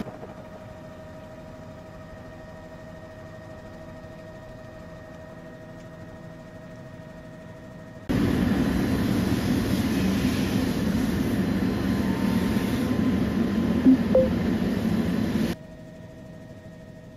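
A steady motor hum with a constant tone. About eight seconds in, a much louder rushing noise comes in abruptly, with a couple of short sharp sounds near its end, and cuts off just as abruptly about fifteen seconds in.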